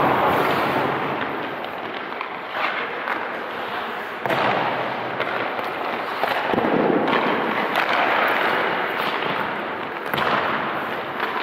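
Hockey goalie drill on ice: skate blades scraping and sharp knocks of pucks or sticks, echoing around the rink. About five knocks come at uneven intervals over a continuous scraping hiss.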